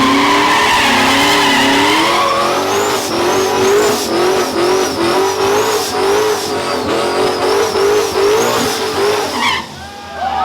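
Ford Mustang spinning its rear tyres: loud tyre squeal over a high-revving V8, the pitch wavering up and down about twice a second. It stops abruptly shortly before the end.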